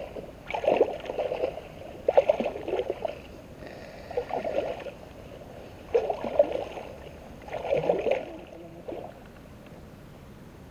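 Wading through shallow flooded grass: legs sloshing and splashing through the water with each stride, about six strides roughly one every one and a half seconds, easing off near the end.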